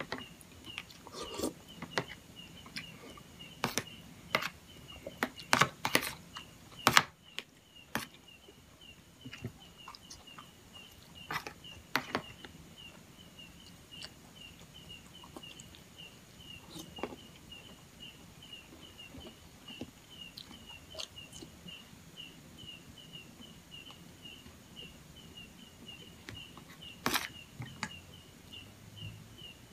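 Metal spoon clicking and scraping against a plastic plate as rice in coconut milk is scooped up, along with eating sounds; the clicks are thickest in the first dozen seconds and come again near the end. A steady high chirp repeats about two or three times a second in the background.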